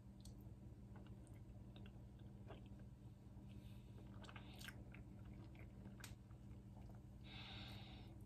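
Faint chewing of soft, fluffy ensaymada bread, with scattered small clicks and a couple of brief soft rustles, over a low steady hum.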